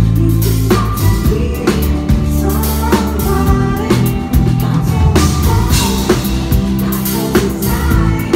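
A rock band playing live: a steady drum-kit beat, about two hits a second, under sustained bass notes, with a singer.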